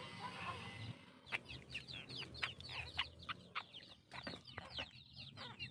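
A young chicken sick with a cold peeping in rapid, short, high falling chirps, starting about a second in. The calls are breathless: the bird is short of breath from mucus in its mouth.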